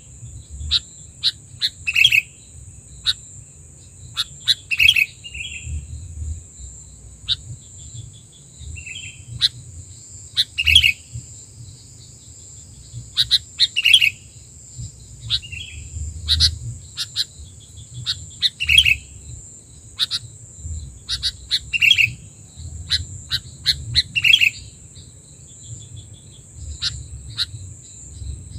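Sooty-headed bulbuls (kutilang) calling: short sharp chirps every two to three seconds, with quick clicking notes in between.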